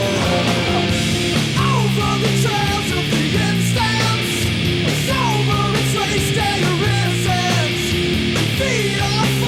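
Loud rock music soundtrack with distorted guitars and steady drums, in a punk or heavy-metal style, with sliding guitar notes.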